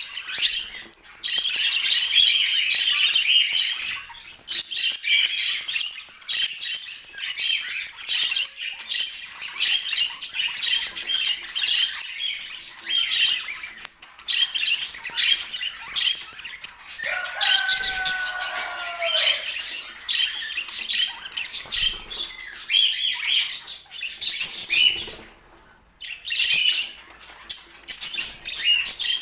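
Budgerigars chattering and chirping continuously in quick, busy bursts. About seventeen seconds in, a lower, drawn-out call of about two seconds bends in pitch.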